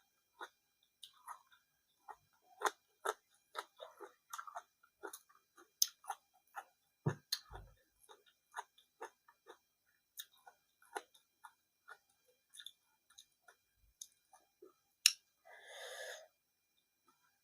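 Close-up chewing of food: irregular wet mouth clicks and small crunches, with a short breathy rush of noise near the end.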